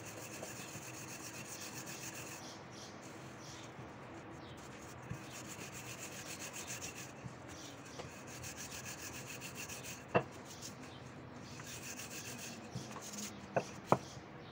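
Wooden rolling pin rolling gözleme dough thin on a granite countertop: a steady rubbing that swells and fades with the back-and-forth strokes. A sharp knock comes about ten seconds in and two more near the end.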